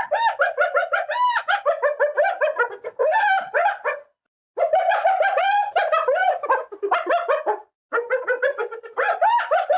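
Spotted hyena giggling: rapid runs of high, rising-and-falling yelping notes, several a second, in three bouts with brief pauses about four seconds in and near eight seconds in.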